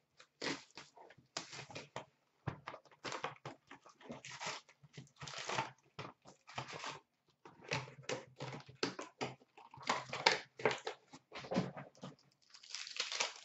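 A box of 2014-15 Upper Deck Masterpieces hockey cards being torn open by hand and its foil-wrapped packs handled: a run of short, irregular rips, rustles and crinkles.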